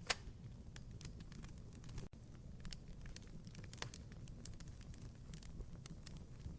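Wood fire crackling: scattered sharp pops and ticks over a low steady rumble, with one louder pop right at the start. The sound drops out for an instant about two seconds in.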